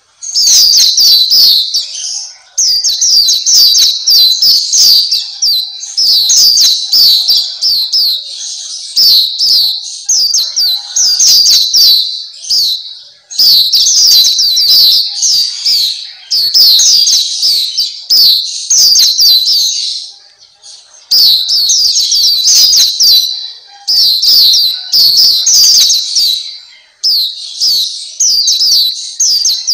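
Black-capped white-eye (pleci black capped) singing its rapid, high twittering song in phrases of a couple of seconds each, with brief pauses between them.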